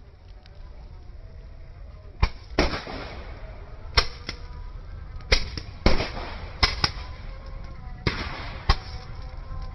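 Small firecrackers going off in an irregular string of sharp bangs, about ten in all, starting around two seconds in; some bangs trail a brief hiss.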